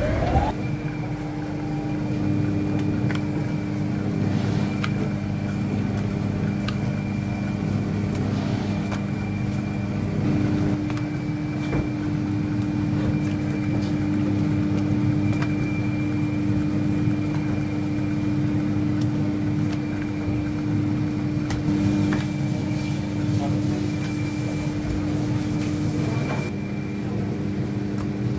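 Electric dough sheeter running, a steady motor hum with a low drone as dough is rolled into thin sheets, with occasional faint clicks.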